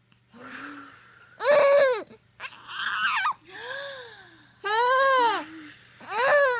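A baby cooing and babbling: a string of about six short, high-pitched vocal sounds about a second apart, each one rising and then falling in pitch.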